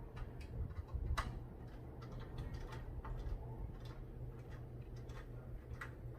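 Irregular light clicks and taps of PC parts being handled and fitted, the sharpest about a second in and again near the end, over a steady low hum.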